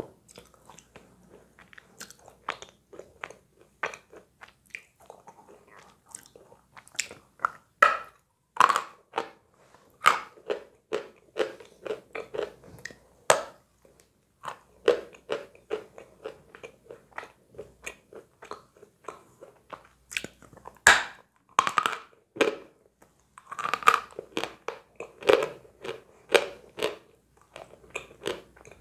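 Close-miked biting and chewing of a white lump of edible chalk: irregular dry crunches and snaps, with quieter chewing between bites. The loudest bites come about 8 and 21 seconds in.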